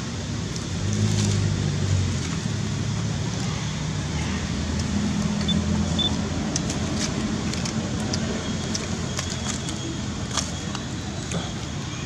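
A low motor-vehicle engine hum over steady outdoor background noise, strongest about a second in and again around five to seven seconds in, with light clicks in the second half.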